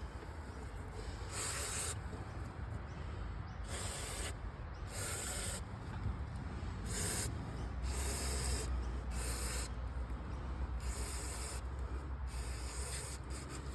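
Cleaning of a tractor hydraulic hose fitting: a series of short hissing scrub strokes, roughly one a second, over a low steady hum.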